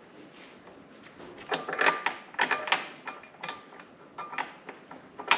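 Irregular metallic clinks and rattles of bolts, nuts and washers being handled while fitting a bench vise's mounting bolt, starting about a second and a half in, some clinks ringing briefly, the sharpest one near the end.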